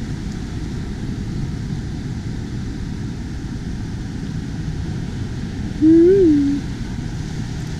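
Steady wind rumble on the microphone with the surf behind it. About six seconds in, a brief hum rises and falls in pitch.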